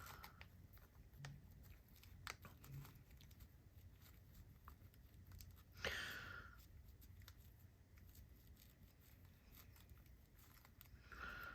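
Near silence with faint handling of small parts: scattered light clicks, and a brief rub or scrape about six seconds in and again near the end.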